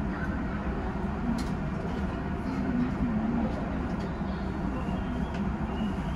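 Steady low rumble and hum of an electric commuter train standing at a platform, heard from inside the driver's cab.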